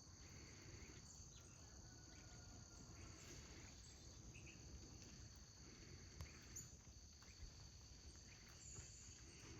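Faint, steady insect chorus: a continuous high trill held at two pitches, over quiet outdoor background noise.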